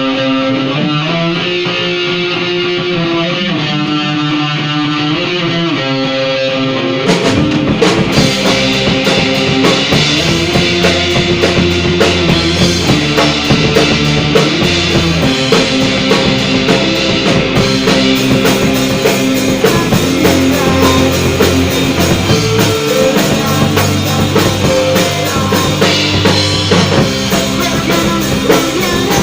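Rock band playing an instrumental intro: a guitar plays alone for about the first seven seconds, then drums and the rest of the band come in together.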